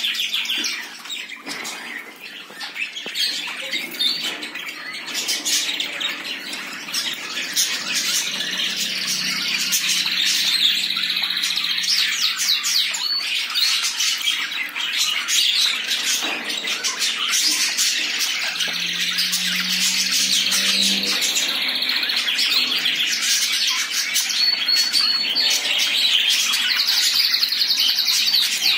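A caged group of cockatiels and budgerigars chirping and squawking in a dense, overlapping chatter. It dips a couple of seconds in and grows fuller from about ten seconds on.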